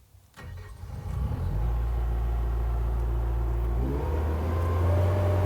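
Terex compact track loader's diesel engine starting about half a second in and settling into a steady idle. About four seconds in it is throttled up, its pitch rising, then holds steady at the higher speed.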